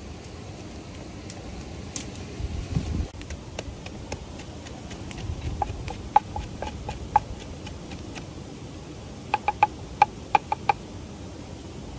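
A series of short, sharp clicks and taps in two clusters, with a few dull bumps, over a steady background hiss.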